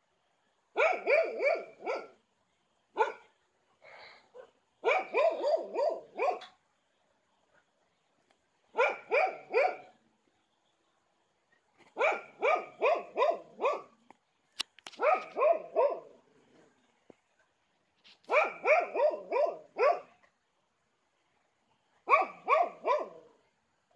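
Stray dogs barking in short bursts of four or five quick barks, with pauses of one to three seconds between bursts.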